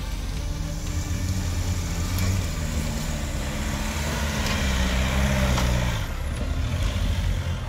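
Land Rover Freelander SUV's engine pulling up a steep loose dirt-and-gravel slope. The engine note rises and then drops about five to six seconds in, with tyres crunching over stones and grit in the middle of the climb.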